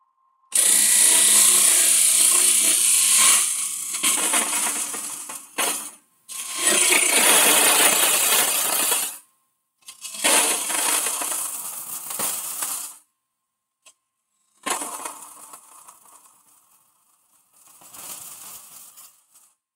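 Hollowing tool cutting inside a Holm oak hollow form spinning on a wood lathe: a hissing scrape of wood being cut. It comes in five bursts of a few seconds each, with near silence between them.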